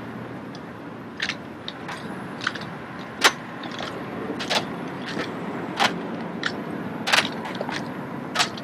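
Sharp slaps and clacks of drill rifles being handled, spun and caught by a drill team, about seven separate strikes at uneven intervals, over a steady background hiss.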